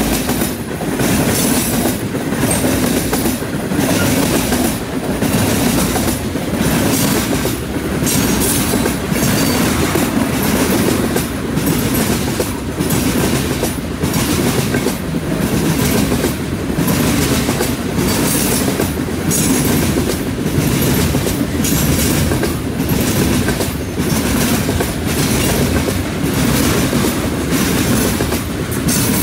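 Freight train of tank cars and covered hopper cars rolling past, its wheels clattering over the track in a steady, even rhythm.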